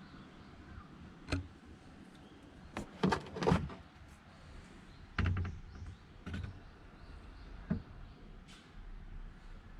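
A series of separate knocks and thumps, about seven in all, the loudest a quick cluster around three to three and a half seconds in.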